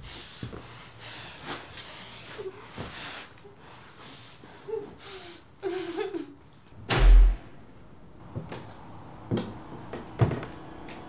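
A gagged woman's heavy breathing and short muffled moans through tape over her mouth as she struggles on the floor. About seven seconds in, a loud heavy slam with a deep thump, followed by a few softer knocks.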